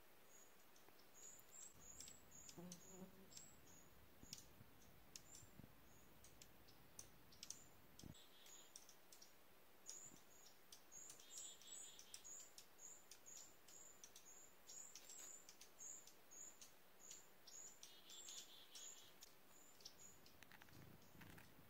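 Dark-eyed juncos calling: a faint, steady series of high, sharp chip notes, about two a second, with a few short, fast trills mixed in.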